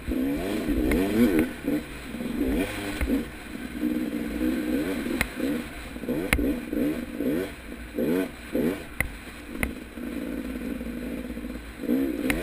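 KTM 300 XC two-stroke single-cylinder dirt bike engine revving up and down over and over as it is ridden along the trail, holding steadier for a stretch near the end. A few sharp knocks sound through it.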